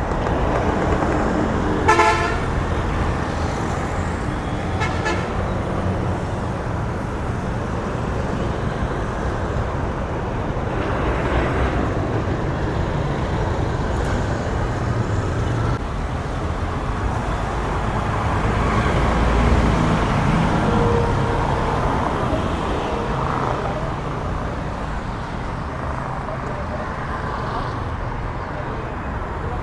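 Busy street traffic with engines running, and a vehicle horn tooting sharply about two seconds in and again more faintly about three seconds later.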